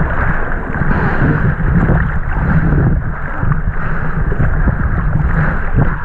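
Strong wind buffeting the action camera's microphone, mixed with water rushing and splashing around the kiteboard on choppy water.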